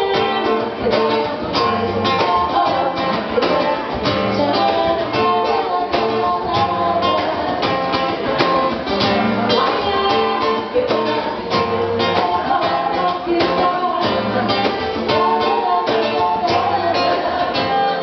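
Live acoustic performance: two women singing a melody together over a strummed acoustic guitar, played at a steady rhythm.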